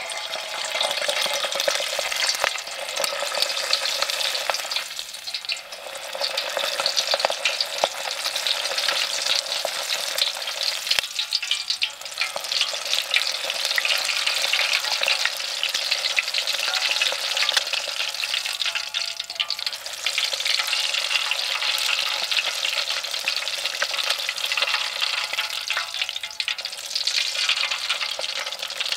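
Bacon-wrapped breakfast bombs deep-frying in hot oil in a metal pot, with a steady crackling sizzle.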